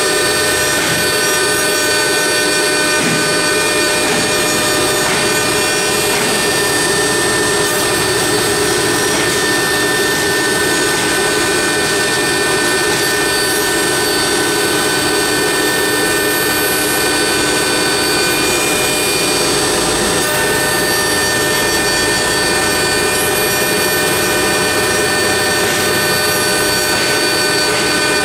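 CNC router spindle whining steadily as its bit carves a wooden column turning on the rotary axis, over a continuous rushing cutting noise. A few of the high tones drop out and return now and then as the cut changes.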